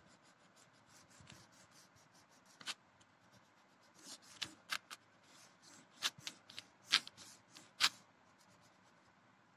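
Crayon scraping over paper in short colouring strokes, with a run of sharper strokes between about four and eight seconds in, then it stops.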